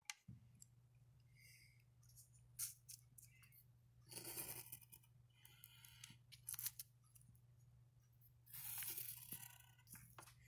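Mechanical pencil scratching on paper while drawing lines, in two longer strokes about four seconds in and near the end, with a few sharp clicks between them. A steady low hum sits underneath.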